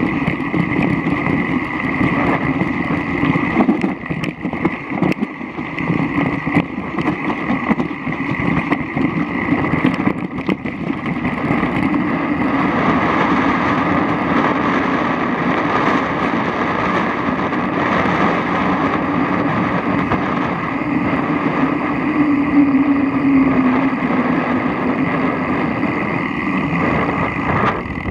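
Mountain bike being ridden in the rain, heard through a bike-mounted action camera: a steady rush of tyre and wind noise on the microphone. For the first ten seconds or so, rattling knocks come through as the bike runs over a stony gravel track. It turns smoother once the bike is on wet asphalt.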